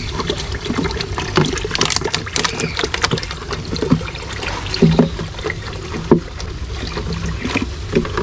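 Water splashing and sloshing while a wet plastic bag is rinsed and rubbed by hand in a basin, with crinkling of the plastic and a few dull knocks about five and six seconds in.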